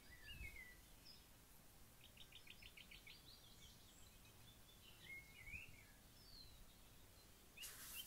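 Faint birds chirping in the background, with short rising and falling calls and a quick trill of about eight notes. Near the end comes a brief rustle of a book page being turned.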